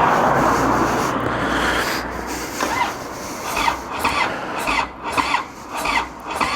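Harley-Davidson Dyna Street Bob's electric starter cranking its V-twin in the cold without the engine firing. It grinds steadily for about two seconds, then turns over slowly and laboriously, with a squeal on each stroke a little over twice a second.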